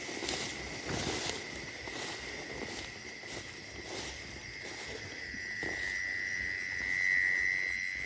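A steady, high-pitched insect drone that swells louder about seven seconds in, over faint rustling of footsteps moving through the field.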